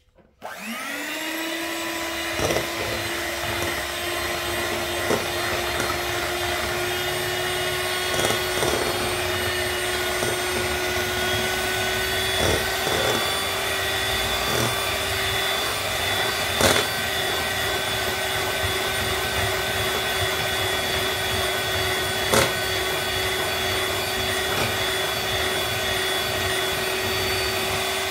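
Electric hand mixer switched on about half a second in: the motor spins up with a quickly rising whine, then runs at a steady high whine as the beaters whisk liquid banana cake batter. A few sharp knocks stand out over the motor.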